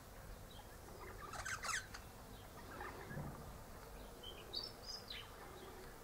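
Eastern rosella parrot calling faintly: a short scratchy chatter about a second and a half in, then a few short high whistled notes near the end.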